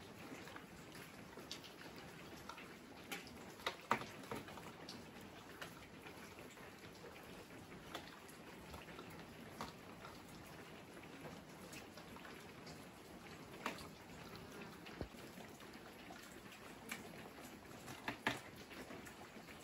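Falling snow outdoors: a faint steady hiss scattered with irregular light ticks as flakes land on surfaces.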